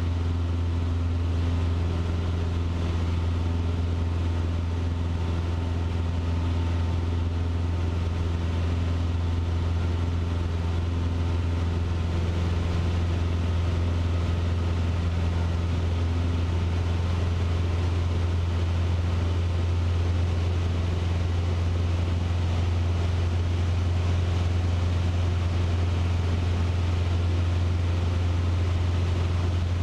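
Cessna 150's four-cylinder Continental O-200 engine and propeller running steadily in cruise flight, heard inside the cabin as a continuous low drone.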